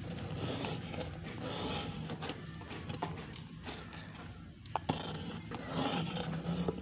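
Metal spoon stirring sweetened milk in a steel pot, scraping against the pot in slow strokes, over a wood fire with scattered sharp crackles.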